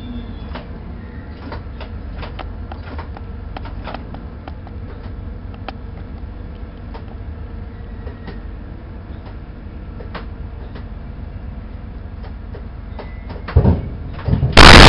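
ADtranz diesel locomotive running low and slow as it closes on a passenger coach, with scattered light clicks and knocks; near the end a heavy thump, then a second smaller one, as it comes up against the coach. Right at the end a sudden burst of loud digital noise from a camera glitch cuts in.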